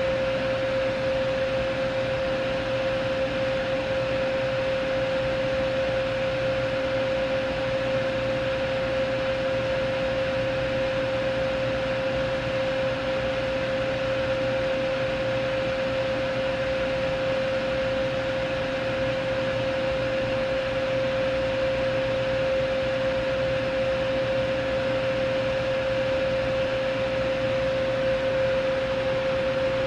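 A steady fan-like whir with a constant mid-pitched hum, unchanging throughout.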